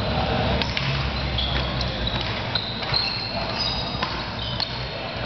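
Doubles badminton rally: several sharp racket hits and footfalls, with short high squeaks of court shoes on the floor several times.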